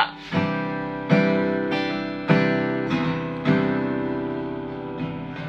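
Acoustic guitar strummed: about six single chord strokes, each left to ring and die away, the last ones softer.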